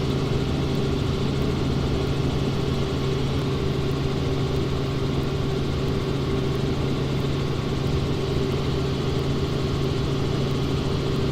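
Helicopter engine and rotor noise: a steady, unchanging drone with a constant low hum.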